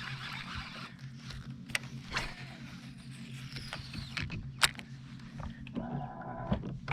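Mechanical creaking with scattered sharp clicks, the loudest about two-thirds of the way through, over a steady low hum.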